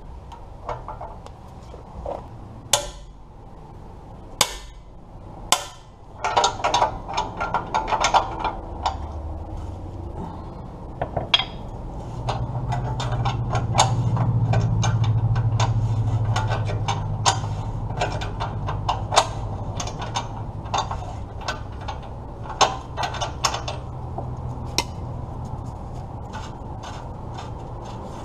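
Irregular metal clicks and clanks of a wrench and sensor socket working a crusty O2 sensor loose from a 2008 Chevy Impala's exhaust pipe, some in quick clusters. A low hum swells and fades in the middle.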